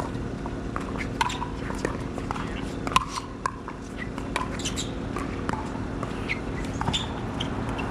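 Pickleball paddles striking the plastic ball during a doubles rally: a quick, irregular series of sharp pops over steady background noise.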